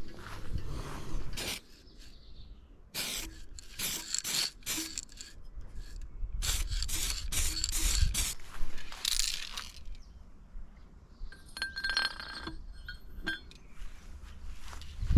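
Irregular clinking and scraping of metal parts and tools during bicycle work, with a brief ringing squeak about twelve seconds in.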